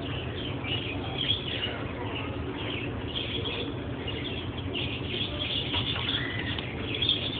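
Birds chirping over and over in short, high calls over a steady low background hum.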